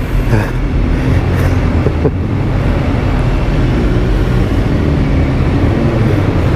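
BMW S1000R's inline-four engine running steadily at low speed, heard from the rider's seat inside a rock tunnel.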